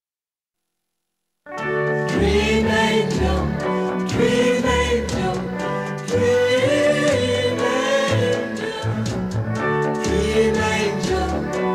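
Silence for about a second and a half, then a 1960 pop ballad starts and plays: orchestral backing with a group of voices singing.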